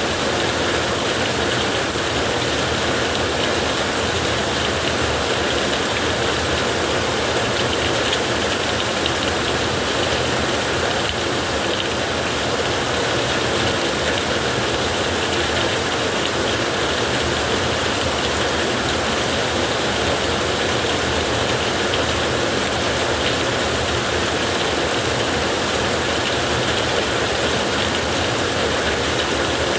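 Heavy rain drumming steadily on a tin roof, a dense constant patter of drops on metal.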